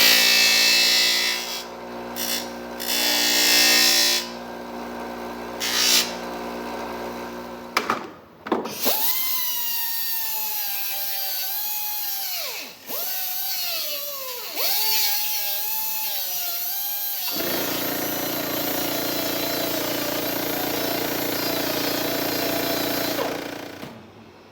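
Power tool grinding and notching the edges of a car's mud flaps, in several runs. First come stop-start bursts of grinding, then a motor whine that sags in pitch under load and recovers three times, then a steadier, lower running that stops shortly before the end.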